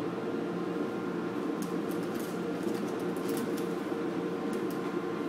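Steady machinery drone with a constant low hum and a higher steady tone, heard from indoors behind glass. A few light clicks come from about a second and a half in and again near the end.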